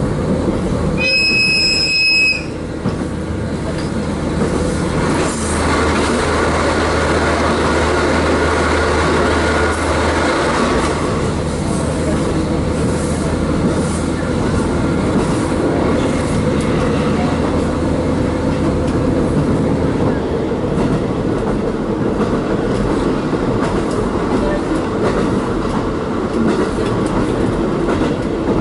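Running noise heard from inside a KiHa 40 diesel railcar: the diesel engine's hum and the wheels rolling on the rails. There is a short, high, steady whistle blast about a second in, and the engine hum strengthens from about five seconds in to about ten.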